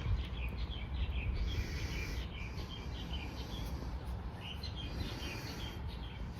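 Birds chirping in quick runs of short, high notes, one run through the first half and another around the fifth second, over a low steady rumble.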